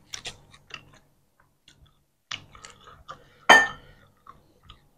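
Close-miked eating sounds of roti canai in curry gravy eaten by hand: soft chewing, wet lip smacks and finger licking, a scatter of short clicks with one sharp, louder click about three and a half seconds in.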